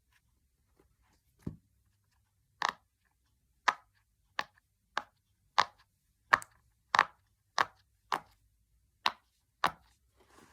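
Silicone Pop It fidget toy bubbles being pressed through one by one: about a dozen crisp pops at a steady pace, roughly one every half second or so.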